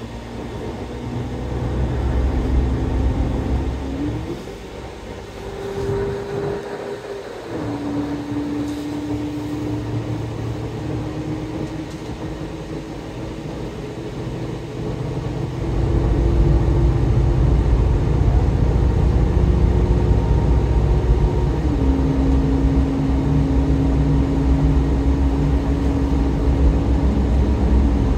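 A GO Transit bus heard from inside while cruising on the highway: a steady engine and road rumble, with a whine that slowly rises in pitch and then drops abruptly twice, about 7 seconds in and about 21 seconds in. The rumble grows heavier and louder about halfway through.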